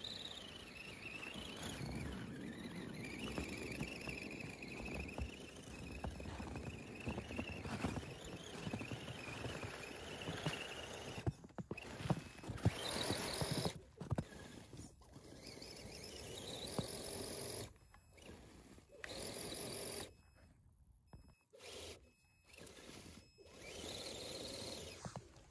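RC scale crawler (a TRX4-style Land Rover Defender 110) driving through deep snow: its electric motor and gears whine, the pitch rising and falling with the throttle, over the crunch of the tyres in snow. In the last few seconds it stops and starts several times.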